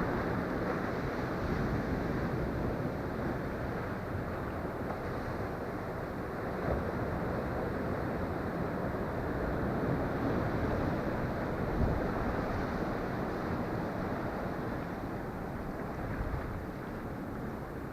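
Ocean surf washing steadily, mixed with wind buffeting the microphone, a continuous rushing noise that swells and eases slowly.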